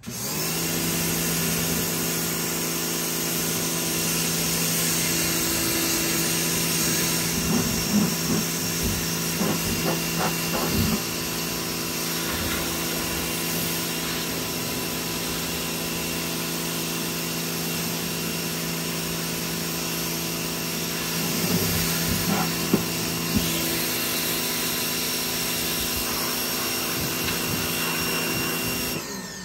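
Electric pressure washer running, its motor and pump giving a steady hum under the hiss of the water jet spraying a concrete floor, with a few louder, uneven spells of spatter.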